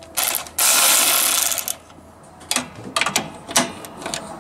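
Power ratchet spinning a socket to undo a hood latch bolt: one run of about a second and a half, then a few short blips near the end.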